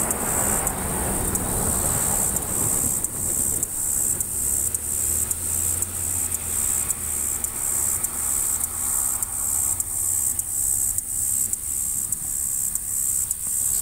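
Insects calling high and shrill in an even pulsing rhythm, about two or three pulses a second, with a low engine hum in the background for several seconds in the middle.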